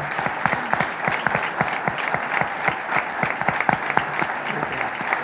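Audience applause: many hands clapping steadily, with the panel at the table joining in.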